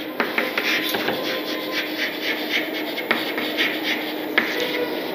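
Chalk writing on a chalkboard: a run of quick scratchy strokes, with a few sharp taps where the chalk strikes the board.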